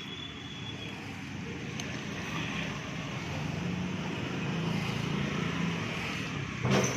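A motor vehicle passing on a nearby road, its noise swelling through the middle and fading again, then a single sharp knock near the end.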